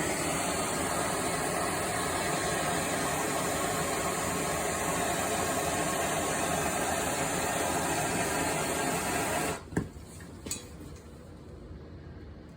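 Gas soldering torch flame burning with a steady hiss while it heats a copper pipe joint to melt the solder. It cuts off about nine and a half seconds in, followed by a couple of sharp clicks.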